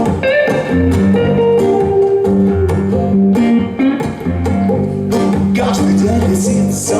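Instrumental intro of a pop song: guitar over a bass line and a steady beat, before the vocals come in.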